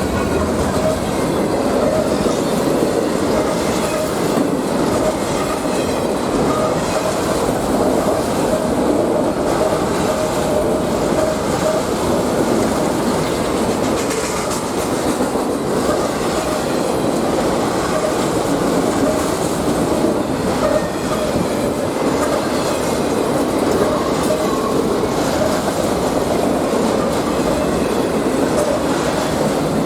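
Freight train cars rolling past steadily, wheels clicking over the rail joints, with a faint wheel squeal coming and going.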